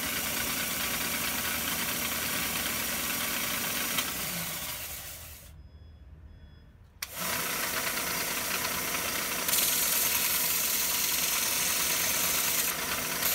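Half-horsepower bench belt grinder running, a steel blade being ground on its sanding belt: steady motor hum with belt hiss and scraping. About four seconds in the sound fades nearly to silence and cuts back in abruptly about three seconds later. From about nine and a half seconds it is louder and hissier, with the blade against the belt.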